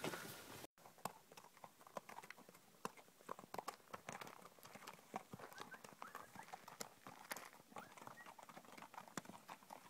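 Faint, irregular clip-clop of a string of mules' hooves on a rocky dirt trail as they walk past.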